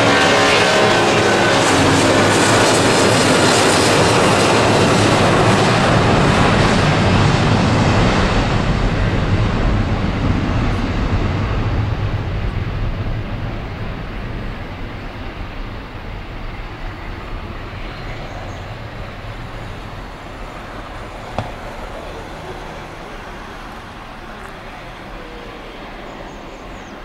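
Boeing 757-200 jet engines at takeoff power as the airliner rolls down the runway and climbs out. A loud jet roar with engine whine fades steadily after about eight seconds as the aircraft climbs away.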